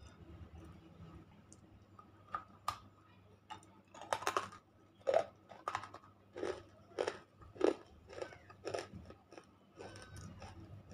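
Teeth biting and crunching a chunk of unshaped nakumatt (slate-pencil clay): a couple of sharp clicks a little over two seconds in, then a run of about ten loud crunches, roughly two a second, from about four seconds until near the end.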